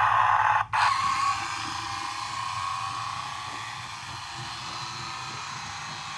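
Battery-powered Road Rippers toy 4x4's small electric motor and gears whirring as it drives fast across a laminate floor. Loud for the first second, with a momentary cut-out just under a second in, then steadier and fainter as it runs away.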